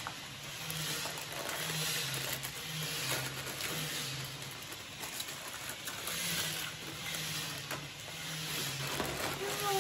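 Foil Lay's chip packets crinkling as they are handled and tipped up, with potato chips being crunched while eating.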